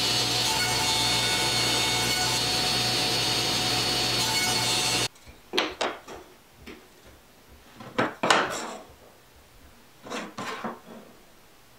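Grizzly G0690 cabinet table saw running with a steady hum, cutting off suddenly about five seconds in. After that come a few light clacks and knocks as mitered wooden frame strips are set down and pushed together on a plywood bench top.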